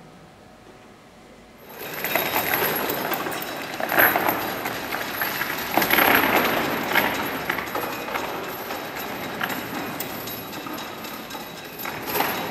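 Heavy steel chains rattling and clanking while the fibreglass puppet joined by metal links scrapes and knocks across the floor as the chains drag it. The noise starts suddenly about two seconds in, with louder clanks about four and six seconds in and again near the end.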